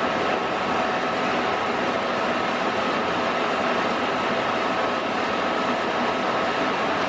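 Restored 5-horsepower Wasino 550 metal lathe running at a steady speed with its chuck spinning freely and no cut: an even mechanical whir with a constant high whine over it.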